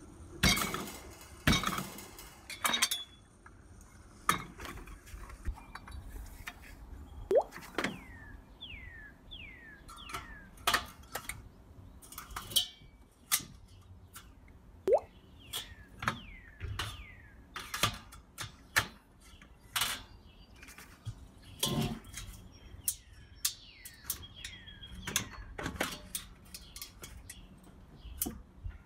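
Metal parts of a Weber Original Kettle charcoal grill clanking and clinking as they are handled and fitted together: the wheels pressed onto the legs and the legs set into the bowl. Irregular sharp knocks, a few much louder than the rest.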